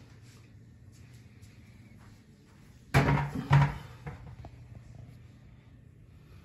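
Two sharp knocks about half a second apart, about three seconds in, like something hard being set down or banged shut, followed by a few faint clicks.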